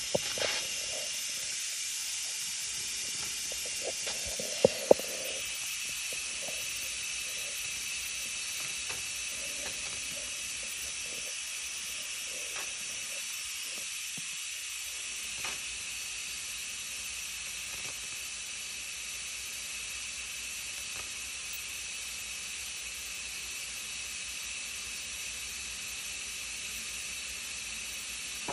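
Instant Pot pressure cooker venting steam through its release valve after high-pressure cooking: a steady high hiss that eases slightly over time. Two sharp clicks about five seconds in.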